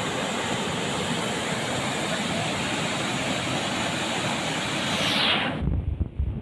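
Loud, steady rushing of water that cuts off abruptly about five and a half seconds in, followed by low, uneven rumbling of wind on the microphone.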